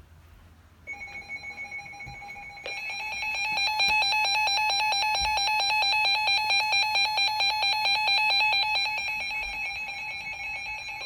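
Reecom R-1650 weather alert radio sounding its electronic alert alarm for an incoming severe thunderstorm warning: a shrill, rapidly pulsing beep. It starts about a second in and gets louder and fuller about three seconds in.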